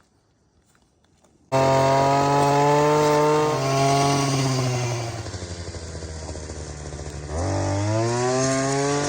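Nearly silent, then a gasoline chainsaw cuts in suddenly at high speed about a second and a half in. Its pitch sags and it quietens around the middle, then it revs back up steeply near the end.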